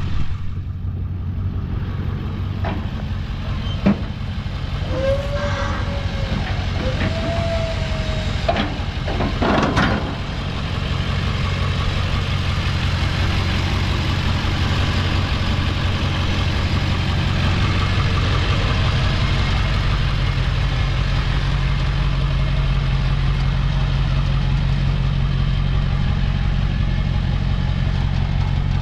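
Ford F250 Super Duty pickup's engine idling steadily. There are a few sharp knocks and two short squeaks in the first several seconds, and a louder clunk about ten seconds in.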